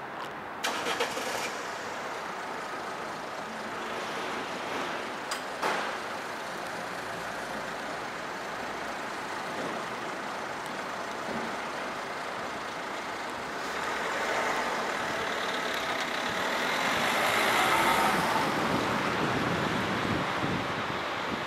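Street traffic: a steady hiss of road noise with a few short knocks in the first six seconds. A motor vehicle runs close by and grows louder from about two-thirds of the way in.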